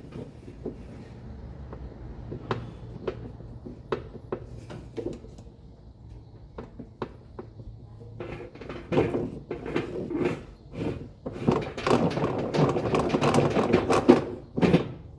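Washing machine parts being handled by hand: scattered clicks and knocks, then a denser run of clattering knocks from about eight seconds in.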